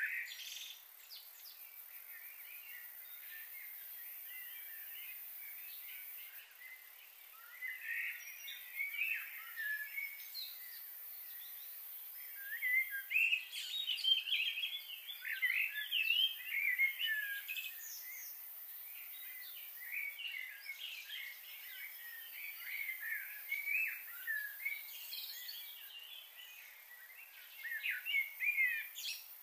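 Small birds chirping and calling, many short high calls in quick runs that grow busiest after the first few seconds, over a steady background hiss.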